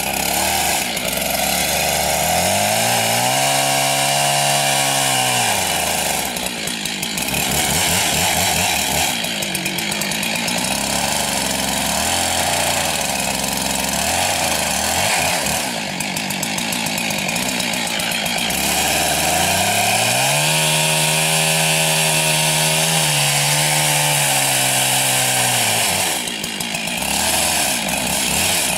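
Husqvarna chainsaw running at high revs, cutting into the trunk of a dead maple during felling. The engine note sags and recovers twice as the chain loads in the wood, once a few seconds in and again past the twenty-second mark.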